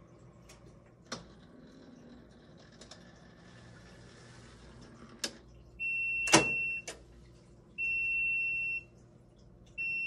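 KitchenAid front-load washing machine sounding its end-of-cycle signal: a high electronic beep about a second long, three times, starting about six seconds in, marking that the cycle has finished without an F11 error. Before the beeps there is only a faint hum and a few sharp clicks, the loudest click during the first beep.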